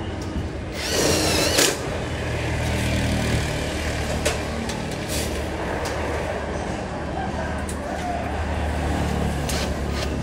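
Steady low mechanical hum, with a brief wavering high-pitched squeal about a second in and a few scattered clicks.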